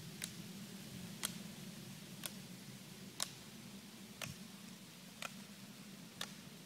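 Steady ticking, one sharp tick each second at a perfectly even pace, over a low steady hum.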